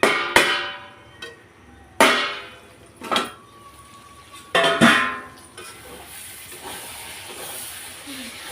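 Metal cookware clanking: a lid and a kadhai struck about five times in the first five seconds, each strike ringing briefly. From about halfway on, tomato masala sizzling steadily in the pan.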